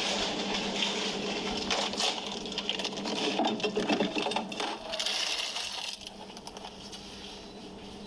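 Things being put into a fridge: a run of clinks, knocks and rattles from containers being handled and set down on the shelves, busy for about six seconds and then dying down.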